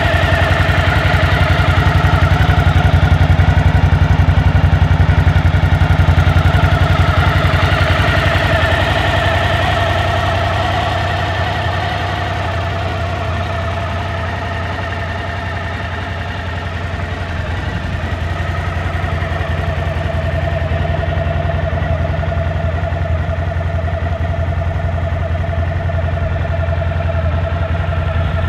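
Suzuki V-Strom DL1000's 996 cc V-twin idling steadily, still warming up after a cold start. The level dips a little midway and comes back.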